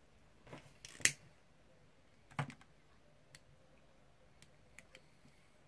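A few short, sharp clicks from a handheld lighter being worked to light a candle. The loudest click comes about a second in and another near the middle, with fainter ticks between them.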